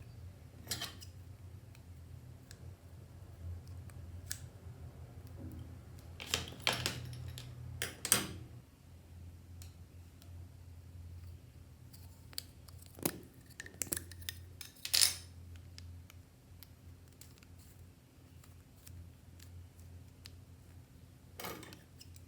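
Clear slime being worked by hand, giving scattered sticky clicks and crackling pops at irregular intervals, with a few louder pops, over a faint steady low hum.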